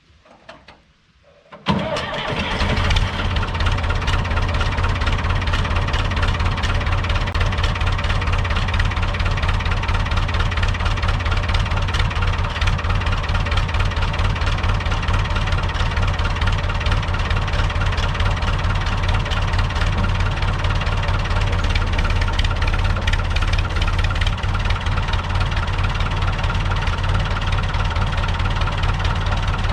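Long 560 DT tractor's diesel engine starting up about two seconds in, after a couple of short sounds, then running steadily.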